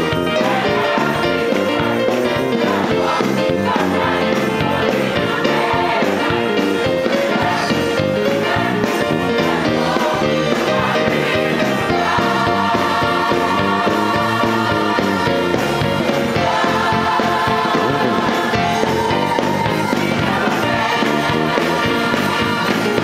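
Gospel choir singing with live band accompaniment, with long held notes from about halfway through.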